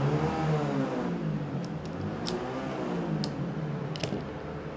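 An engine revving up and down twice, with a steady low hum under it. A few light, sharp clicks sound over it.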